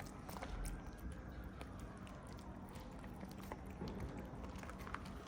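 Cats eating soft food: small wet chewing and lapping clicks, scattered and irregular.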